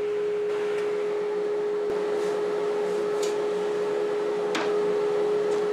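Table saw motor running steadily with a constant whine, plus a few light clicks of wood being handled at the fence.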